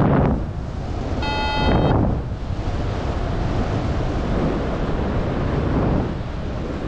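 Wind buffeting the microphone in flight under a paraglider, a steady rushing noise that swells at times. About a second in, one electronic beep sounds for roughly half a second.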